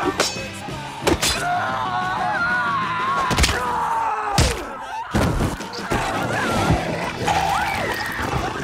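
Movie fight sound effects: a handful of heavy thuds of blows landing, the loudest near the middle, among wavering pained cries and screams, over a low music score.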